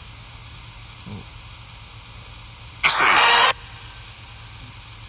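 Phone spirit-box app (GhostTube) playing a steady hiss of static, broken about three seconds in by one loud, brief burst of distorted, voice-like sound, which the investigators take for the word "car".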